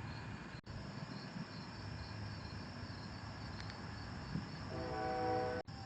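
Crickets chirping in a steady, even pulse over faint background hiss. Near the end a distant pitched horn-like tone sounds for about a second, and the sound drops out briefly twice.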